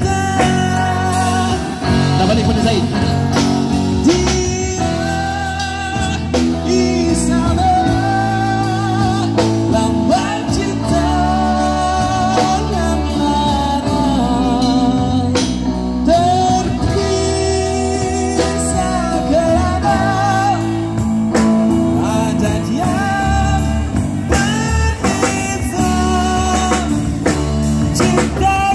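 Live rock band: a male singer singing with a wavering vibrato through a microphone over amplified electric guitars and a drum kit.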